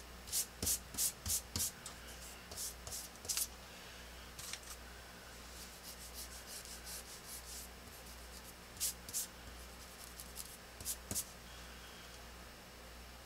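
A pen drawing short strokes on drafting paper, each stroke a brief scratch. A quick run of about five strokes comes in the first two seconds, then scattered single and paired strokes with pauses between them.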